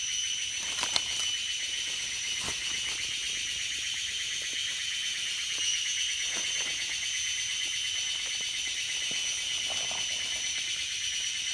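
Steady chorus of forest insects, several high trilling pitches layered over one another without a break. A few faint clicks and rustles of hands working among leaf litter.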